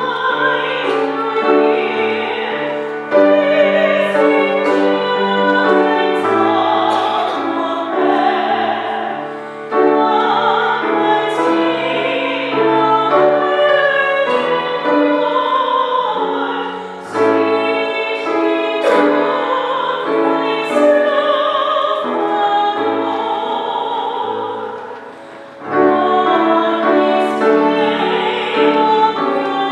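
A hymn sung by voices with vibrato over keyboard accompaniment, in long phrases with a short dip between them about every seven to eight seconds.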